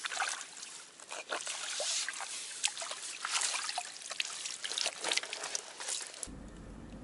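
Water pouring and dripping from a fishing landing net's mesh as it is lifted out of the pond, with small splashes. It stops abruptly about six seconds in.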